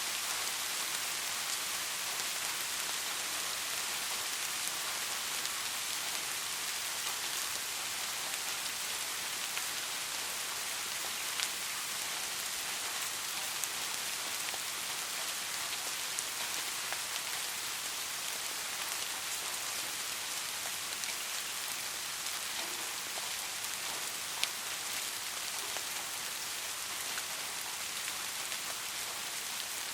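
Light, steady rain falling on a surface: an even hiss with scattered individual drop ticks, a few of them louder.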